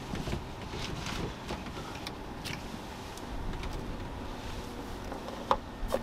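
Handling noise at a portable fridge: the lid is lifted and cans are moved about inside, giving scattered clicks and knocks, the sharpest a little before the end.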